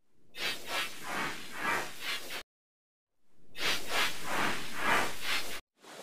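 Two stretches of harsh hissing noise, each about two seconds long, with a second of silence between: heavily distorted, effect-processed audio with no clear pitch.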